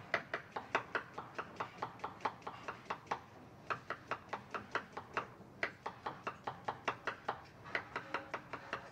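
Kitchen knife chopping a red onion on a cutting board: quick, even cuts about five a second, with a short pause a little over three seconds in.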